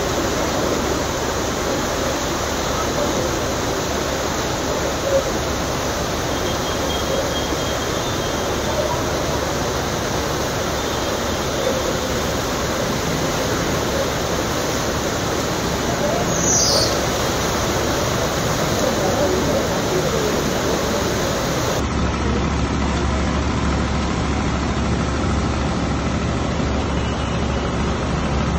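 Heavy rain and rushing floodwater making a steady hiss. About two-thirds of the way through, the sound changes to rain over a steady low engine rumble of traffic driving through the flooded road.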